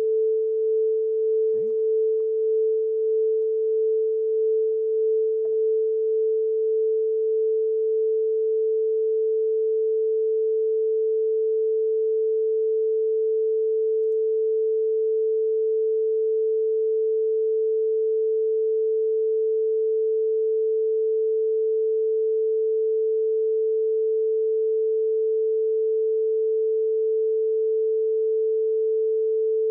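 Steady 440 Hz sine tone from an online tone generator, one unchanging pitch, played as a reference tone at about 70 decibels to calibrate a sound sensor against a decibel meter.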